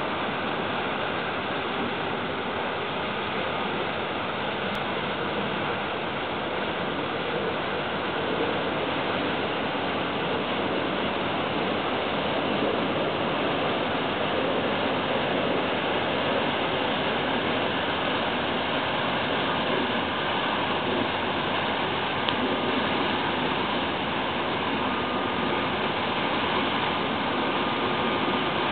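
A steady rushing noise from a passing container ship's machinery and bow wave, slowly growing louder as the ship draws level. Faint steady whining tones sit on top.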